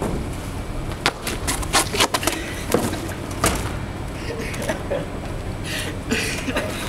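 A run of sharp knocks and scrapes on asphalt as a person falls to the ground, over a steady low rumble.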